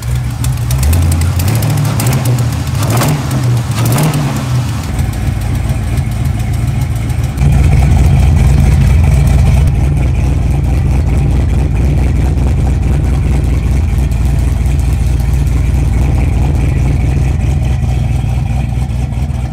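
Box Chevy's engine running and being revved, its pitch stepping up and down, then steadier and louder from about seven seconds in.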